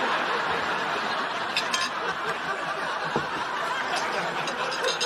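Studio audience laughing, a steady swell of crowd laughter that holds throughout.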